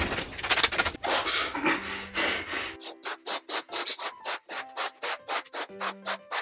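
A latex balloon being stretched and worked between the hands for about the first three seconds. After that, background music with a quick, choppy beat takes over.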